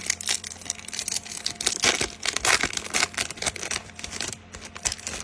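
Foil booster pack being torn open and crinkled by hand, a run of irregular crackling rustles.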